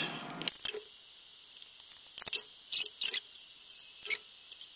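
A handful of short, sharp clicks and light taps, spaced a second or so apart with quiet between: hand tools and small metal parts being picked up, handled and set down on a workbench.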